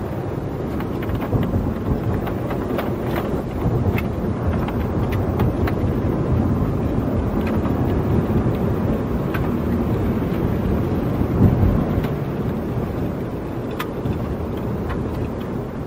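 Car driving along a road, heard from inside the car: a steady rumble of tyres and engine with a few faint ticks.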